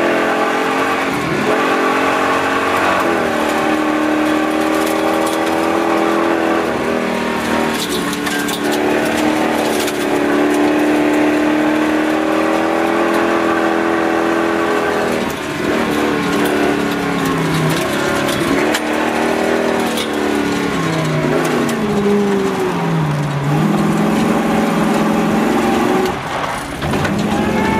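1951 Chrysler New Yorker's 354 Hemi V8 running hard under racing throttle. Its pitch climbs and falls away several times as it revs and shifts, with one deep drop about 23 seconds in before it pulls back up.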